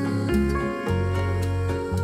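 Background music, with held notes that change about once a second.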